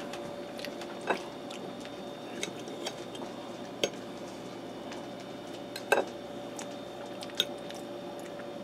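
Knife and fork clicking and scraping on a ceramic plate as small roasted potatoes are cut: about half a dozen light, separate clicks, over a faint steady hum.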